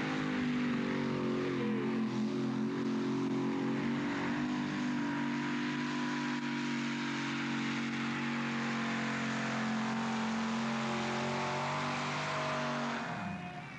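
Modified pulling tractor with four alcohol-fuelled Ford engines running flat out under load as it drags the weight sled down the track, the engine note held high and steady. About 13 seconds in the note drops in pitch and fades as the engines wind down.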